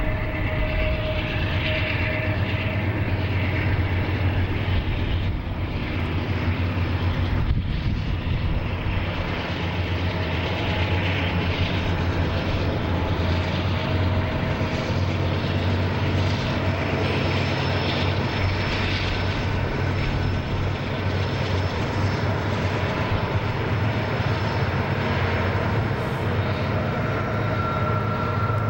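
Southern Pacific SD40T-2 diesel locomotives working hard under load up a steep mountain grade: a steady, heavy engine drone with a strong low hum. Faint thin high tones come and go over it.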